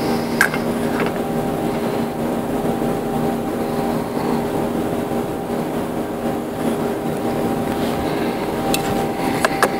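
Power sander motor running at a steady speed, a constant hum with a few light clicks about half a second in and again near the end.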